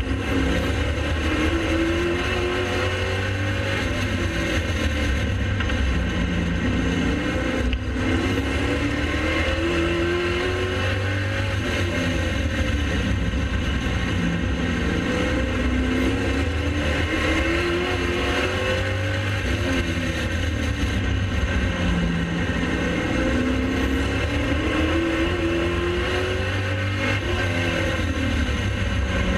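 Late model race car's V8 engine running hard at racing speed, loud and continuous. Its pitch climbs on each straight and eases off into the turns, about every six seconds.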